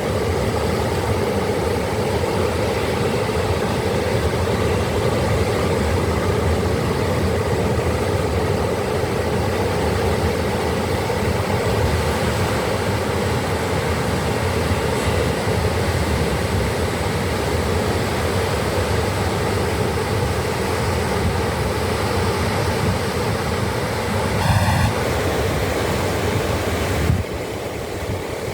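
Ocean surf: waves breaking and washing in a steady, unbroken rush. About 24 seconds in, a short pitched sound rings out for about half a second, and near the end the surf drops a little in level.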